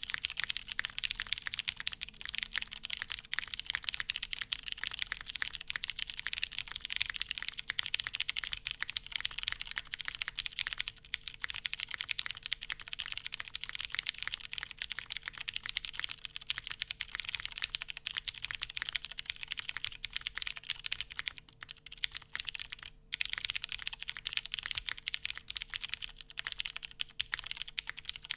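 Continuous fast typing on a custom mechanical keyboard, a Baionlenja Bias V2 with lubed Cherry MX White switches, GMK keycaps and a polycarbonate plate on soft grommets: a dense run of keystrokes with one brief pause about two-thirds of the way through.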